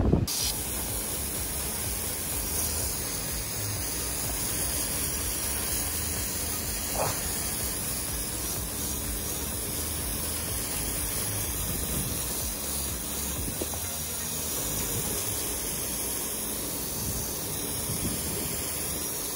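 Steady hiss of water spraying from a garden hose onto concrete, with a malamute snapping at the spray.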